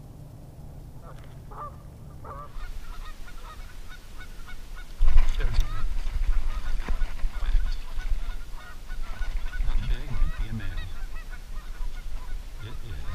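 Birds calling over and over in short repeated calls, with wind rumbling on the microphone from about five seconds in.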